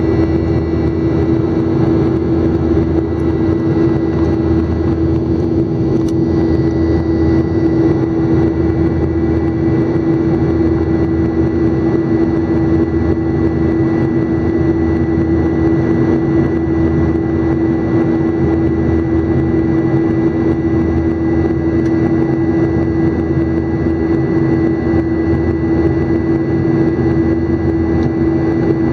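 Jet airliner's engines heard inside the cabin at a window seat during the climb after takeoff: a steady roar with a strong low hum and a thin, high, constant whine.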